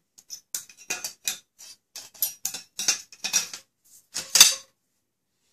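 Remington 11-87 shotgun parts clicking and clacking as the metal barrel is fitted back onto the gun: a quick run of sharp metal clicks, with one louder clack about four seconds in.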